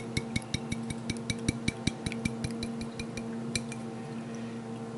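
Glass jar of Alfredo sauce clinking in a quick run of light ringing taps, about five a second, as it is knocked to work the thick sauce out. The taps stop about three and a half seconds in, leaving a steady low hum.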